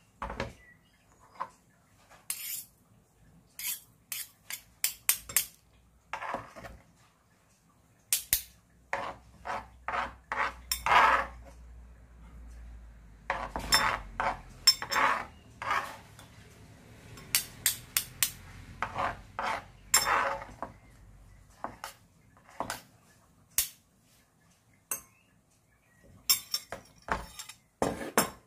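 Kitchen utensils and dishes clinking and knocking in a string of short, irregular clatters, with a low hum under the middle stretch.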